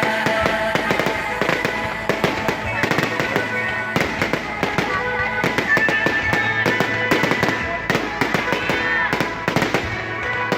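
Fireworks going off in rapid, irregular succession, a dense run of sharp bangs and crackles, over music and voices.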